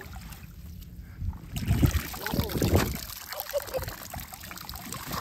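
Water splashing and dribbling out of a netting fish trap as it is hauled up out of the water, loudest about two seconds in, with rustles and knocks of the net and its pole.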